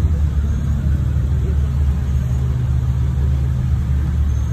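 Jeep engine running with a steady low rumble.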